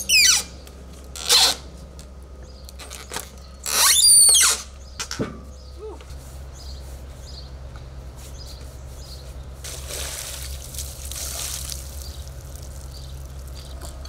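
A heavy, freshly sawn walnut slab dragged across the sawmill's steel bed, scraping and squealing in a few short screeches in the first five seconds, the loudest about four seconds in. After that a low steady hum continues.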